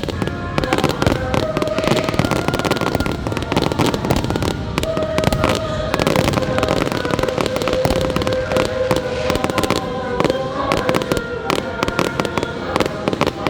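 Fireworks bursting and crackling in rapid succession, many sharp reports close together, over music with long held notes.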